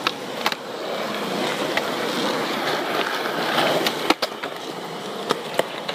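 Skateboard wheels rolling on smooth concrete with a steady rolling noise. About four seconds in come sharp clacks as the board hits a ledge in a trick, then a few lighter clicks.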